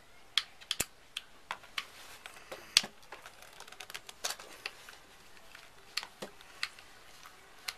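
Irregular sharp clicks and light plastic taps from hands working on an airsoft M4's pistol grip and motor base plate, the loudest about three seconds in.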